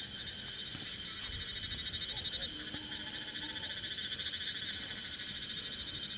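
Insects chirping in a steady, high-pitched, rapidly pulsing trill, which swells a little from about a second in.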